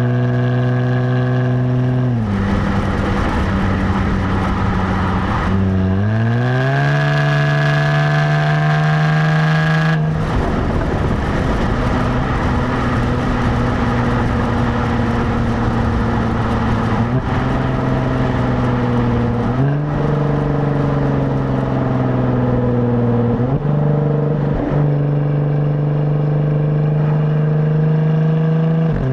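Stock exhaust of a 2017 Jaguar F-Type, heard from the rear plate while driving. The engine note holds steady, drops about two seconds in and climbs under acceleration from about six to ten seconds. It then turns rougher for a moment and settles into steady cruising, with a few steps up and down in pitch.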